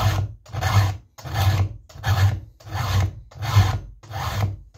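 Hand-filing a chainsaw chain with a round file: about seven even rasping push strokes, one every 0.7 seconds or so, with no filing on the return. Each stroke sharpens a dulled cutter tooth back to a clean working corner.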